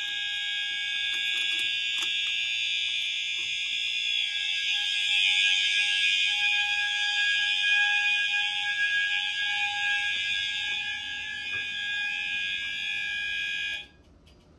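Fire alarm system sounding its alarm, a continuous high-pitched electronic tone that cuts off suddenly near the end.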